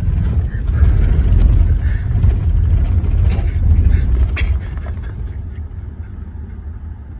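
Volkswagen Jetta driving over a rough dirt road, heard from inside the car: a low rumble from the tyres and suspension with several knocks and jolts as it bounces, easing off about four and a half seconds in.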